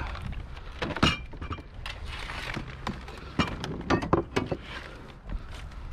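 Household junk in a hard-rubbish pile clinking and knocking as it is shifted about by hand: a sharp knock about a second in, then scattered clinks with a cluster past the middle.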